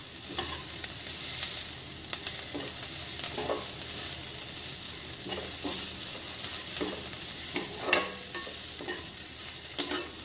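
Sliced onions frying in oil in a nonstick kadhai with a steady sizzle, stirred with a perforated steel spatula that scrapes and knocks against the pan at irregular intervals, a few sharper knocks near the end. The onions are being sautéed until pink for a tadka.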